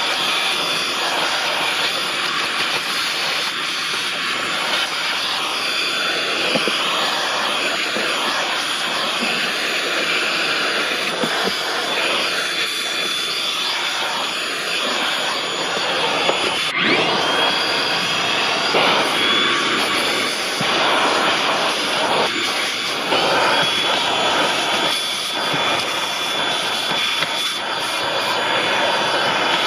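Milwaukee M18 cordless compact vacuum running steadily with a high whine. The whine shifts in pitch a few times as it sucks.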